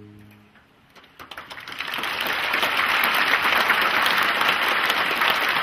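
The saxophone orchestra's last held chord dies away, and after a brief hush the audience breaks into applause that swells over about a second and then holds steady.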